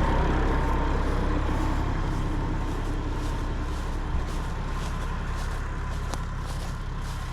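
Diesel tractor engine running steadily at a low idle, growing slightly fainter, with a couple of faint clicks.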